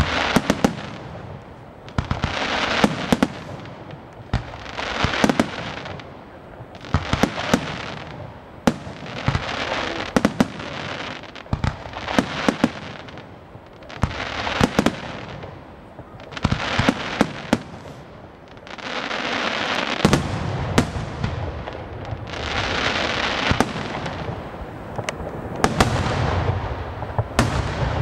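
Aerial firework shells bursting one after another, about every two to three seconds. Each sharp bang is followed by a second or so of dense crackling from the glittering gold stars.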